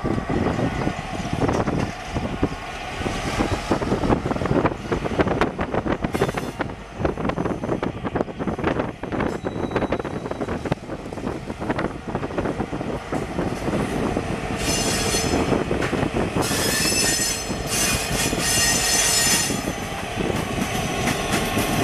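IBCX 7042, a GP9rm diesel locomotive, pulling covered hopper grain cars toward the listener, its engine running and its wheels clicking over the rails. From about 14.5 s a high ringing tone sounds over it for about five seconds, with a short break near 16 s.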